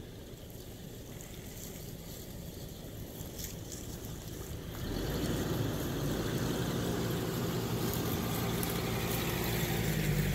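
Hummer H3's 3.5-litre five-cylinder engine running at low revs, then louder under more throttle from about five seconds in, with a steady low engine note.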